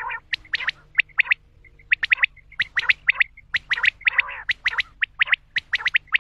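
Common quail calling: repeated quick three-note phrases of sharp, clipped notes. A harsher rasping call comes right at the start and again about four seconds in.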